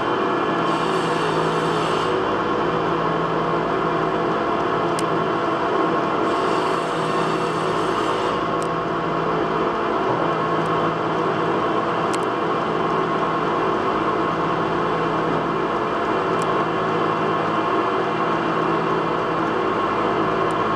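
Belt- and gear-driven metal lathe running steadily while turning a metal workpiece, its motor and drive giving an even hum of several steady tones. Two short stretches of higher hiss come about a second in and around six seconds in, and a few faint clicks are scattered through.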